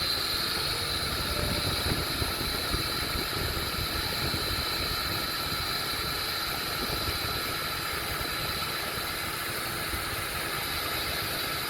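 Power drill running steadily with a high whine while its heavy-duty bit bores into angled aluminum behind a wooden frame. The bit is grabbing and struggling in the aluminum.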